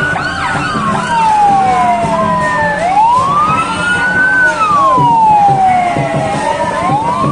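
Ambulance siren sounding a slow wail as it passes close by, the pitch climbing for about a second and a half and then falling for about two and a half, over and over.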